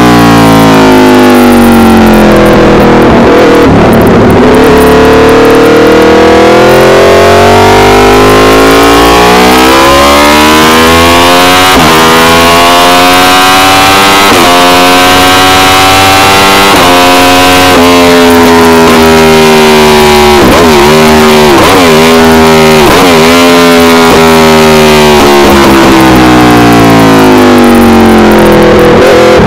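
Aprilia RSV4 Factory's V4 engine through an SC-Project CRT exhaust, running hard and very loud. The pitch climbs steadily and drops at each upshift. About two-thirds through it falls and rises several times in quick succession as the rider brakes and downshifts with throttle blips.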